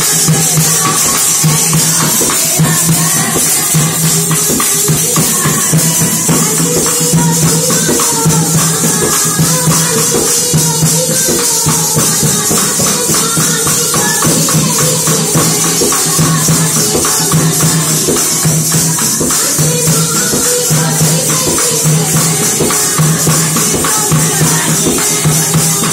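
Devotional bhajan-kirtan music: group singing over fast, steady jingling hand percussion, a tambourine-like shaking and clapping that keeps the beat throughout.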